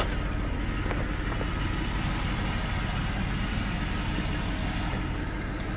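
Pickup truck engine idling steadily, with a couple of faint ticks about a second in.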